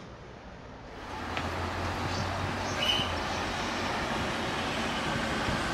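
Steady street traffic noise, starting suddenly about a second in after quiet room tone, with one brief high chirp near the middle.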